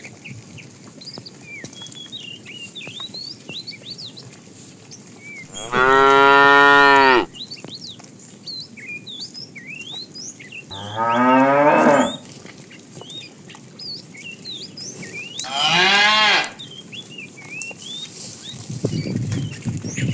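Cows mooing: three long moos a few seconds apart, each lasting about a second or a little more, with small birds chirping throughout.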